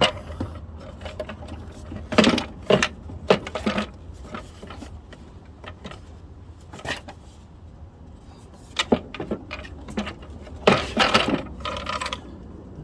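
Irregular knocks, clicks and rattles of plastic and metal parts being handled as an air filter housing is closed up after a new filter is fitted. The clatter comes in two clusters, one a couple of seconds in and one near the end.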